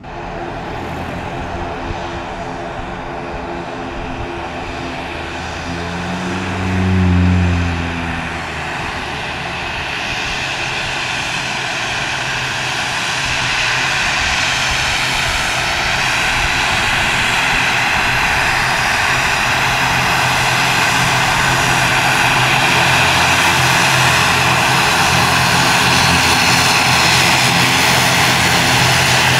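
Airliner engines running loud and growing louder over the first two thirds, then holding steady. A brief low humming swell rises and falls about seven seconds in.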